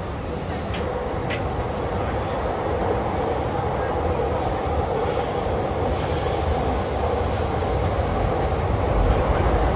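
A train running past, its steady rumble growing gradually louder, with a thin high squeal of wheels on rail about halfway through.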